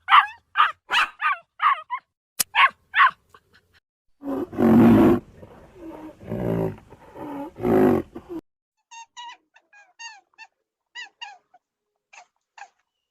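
Animal calls: a run of short high yips for the first few seconds, then a loud, deep growling roar lasting about four seconds, then a series of short, high chirping calls.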